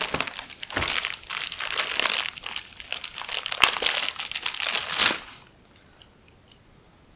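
Packaging bag crinkling and rustling as it is pulled open and worked off a set of shocks, with sharp crackles; it stops suddenly about five seconds in.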